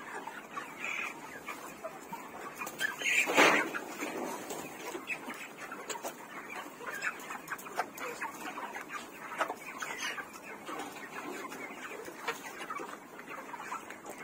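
A flock of chickens in a poultry house clucking and calling over one another, many short overlapping calls, with one louder call about three and a half seconds in.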